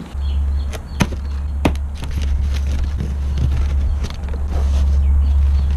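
Car being driven: a steady low engine and road drone, with a few sharp clicks or knocks about a second in.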